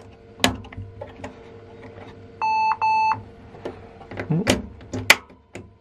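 Two short, high-pitched electronic beeps from the Lenovo ThinkStation D30's motherboard beeper, about halfway through, as the workstation reboots itself while its CPU socket is being handled. Sharp clicks of fingers on the socket's metal retention frame and lever come before and after, the loudest near the end, over a steady faint computer fan hum.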